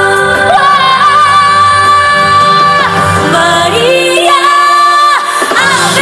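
Live pop music with a female singer holding one long high note, then sliding up and down through a vocal run over the backing track.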